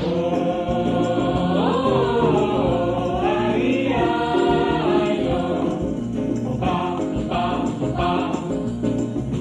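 Pop choir singing in harmony, the voices holding and gliding between chords; from about six seconds in, short accented beats come in roughly every two-thirds of a second.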